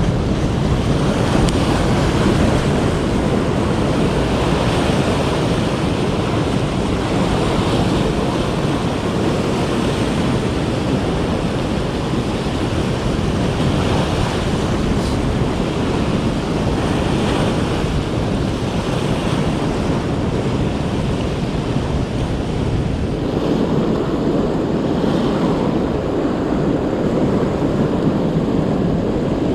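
Ocean surf breaking and washing over coastal rocks in a steady wash of noise, with wind rumbling on the microphone.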